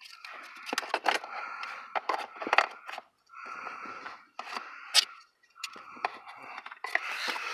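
Hard plastic parts scraping and rubbing together, with many sharp clicks and knocks, as a blower motor's plastic cooling vent tube is worked and twisted into place.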